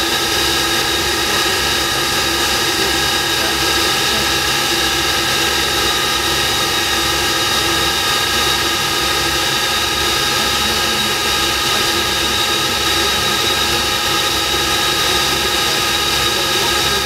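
Avro Vulcan's Bristol Siddeley Olympus turbojets running steadily during a ground run, heard inside the cockpit: an even rush with several steady high whining tones.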